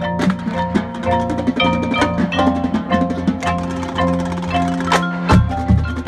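Marching band front ensemble playing: quick marimba and xylophone notes over a held, amplified bass line. Heavy low drum hits come in about five seconds in.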